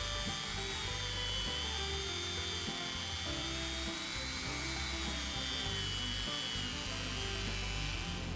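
Handheld rotary tool spinning a felt polishing wheel against the steel shaft of an awl: a steady high-pitched whine that wavers slightly in pitch as the metal is buffed. Soft background music plays underneath.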